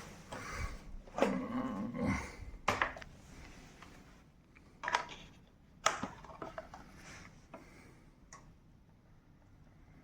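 Hard plastic parts of a wet-dry vacuum's tank and filter being handled: a run of irregular knocks and clatters with some rubbing, dying away after about eight seconds.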